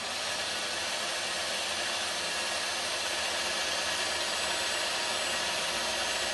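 Minitrix N-scale BB 15000 model electric locomotive running flat out on a rolling-road test stand at about 15 volts, its motor and drive making a steady, high whir.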